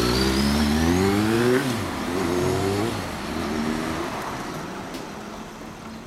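Suzuki GSX400S Katana inline-four, fitted with a WR'S aftermarket silencer, accelerating away and revving up through the gears: the engine pitch climbs three times, dropping at each upshift about one and a half and three seconds in, and fades as the bike pulls away.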